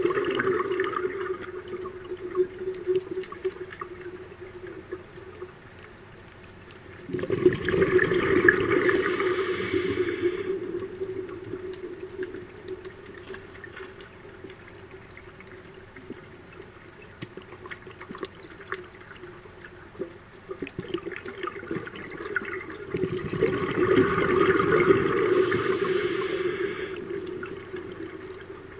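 Scuba diver's exhaled bubbles from the regulator rushing and gurgling past the underwater camera: one burst fading at the start, then two more about 7 and 23 seconds in, each lasting three to four seconds, over a steady low hum.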